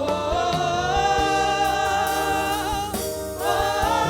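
Gospel praise chorus: voices holding long sung notes over a band with bass and a steady drum beat, pausing briefly about three seconds in before the next held note.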